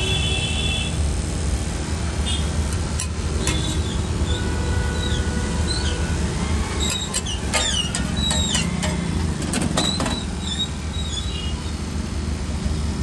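Metal tongs and spatula clicking and scraping on a flat steel griddle, with short squeaky scrapes, most of them between about 7 and 10 seconds in. Under them runs a steady low rumble of street traffic.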